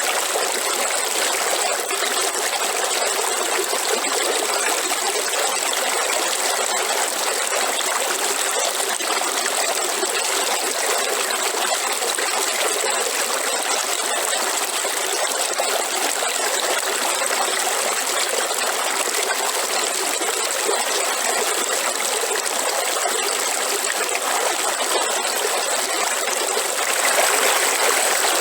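Waterfall: a steady, continuous rush of falling water, a little louder near the end.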